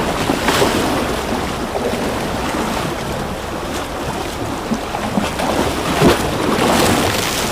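Ocean waves washing in continuously, with a wave breaking more strongly about six seconds in.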